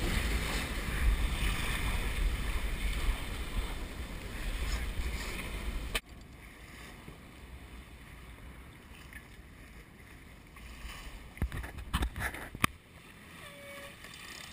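Wind buffeting the microphone and water rushing past the hull of a century-old schooner sailing hard. About six seconds in it cuts off abruptly to a much quieter hiss, with a few sharp knocks near the end.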